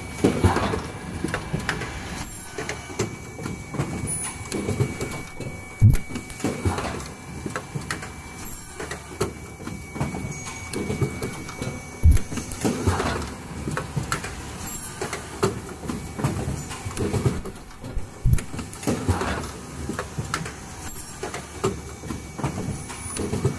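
Automatic N95 cup mask making machine running: its indexing conveyor and assembly stations clatter and knock in a repeating cycle, with louder thumps every couple of seconds and a faint steady whine.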